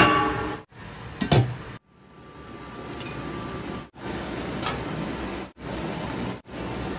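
Stainless steel steamer pot clinking as it is handled, then a steady hiss of steam from the steamer in several short stretches, each cut off abruptly.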